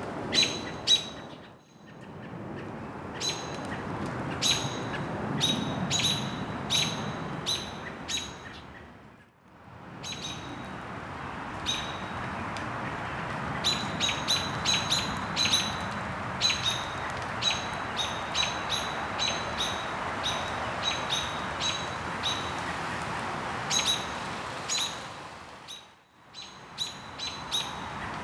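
Small bird chirping over and over: short, sharp, high chips, often in quick runs, over a steady low background hiss. The sound drops out briefly three times.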